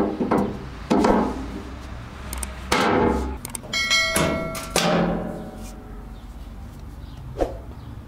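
Metal bandsaw wheel-cover door clunking and knocking against the saw frame as it is set in place, then a small metal draw latch clicking near the end. A short ringing chime sounds about four seconds in.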